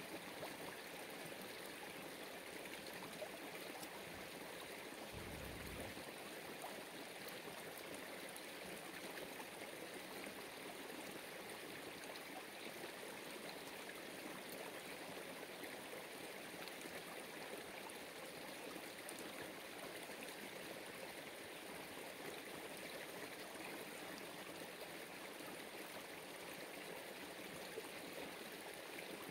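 Steady rush of running water, like a stream, with no change in level.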